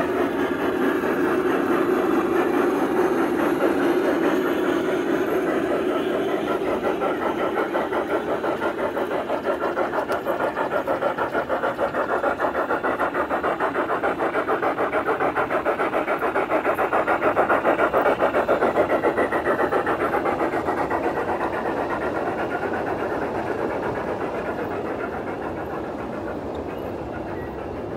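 A 1:20.3-scale model steam locomotive and its train running past: a fast, even chuffing beat with wheel noise. It is loudest a little past the middle, then fades as the freight cars roll by.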